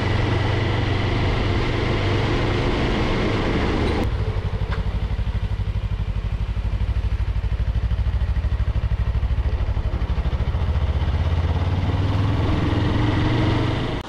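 Engine of the vehicle carrying the camera, running at low road speed with a steady, pulsing low throb. A higher rushing hiss over it drops away about four seconds in, leaving mostly the engine.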